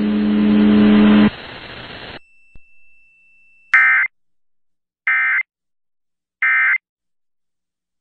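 Emergency Alert System end-of-message code over the radio: three identical short bursts of digital data screech, about 1.3 seconds apart, marking the close of the test. Before them, a steady low hum stops about a second in.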